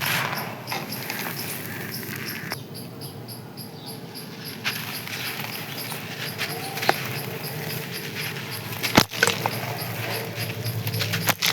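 Dry sand-clay crust crunching and crumbling, with dense crisp crackles and scattered sharp snaps. It goes quieter for a couple of seconds early on, and there is one louder snap about nine seconds in.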